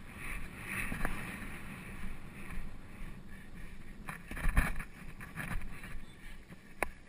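Wind rumbling on the microphone of a camera carried on a galloping polo pony, with irregular knocks from hooves and tack. About four and a half seconds in comes a sharp crack, the loudest sound, as the polo mallet strikes the ball.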